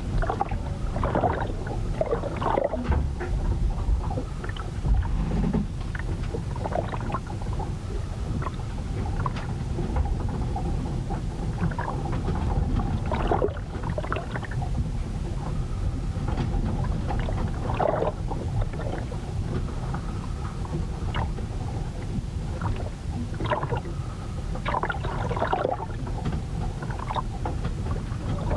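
Storm sound aboard a ship: a steady low rumble of wind and water against the vessel, with short creaks and knocks every few seconds.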